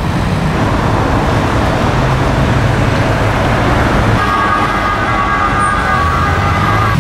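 Road traffic: cars passing with a steady engine and tyre rumble. About four seconds in, a steady high-pitched sound of several tones together joins in and holds until it cuts off sharply at the end.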